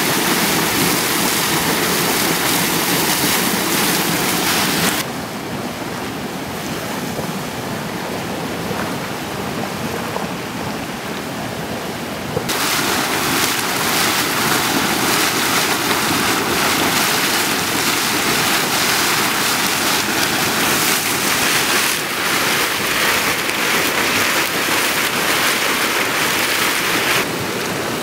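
Deildartunguhver boiling hot spring: scalding water gushing and splashing out of the rock in a steady rushing noise. Its loudness drops and returns abruptly a few times.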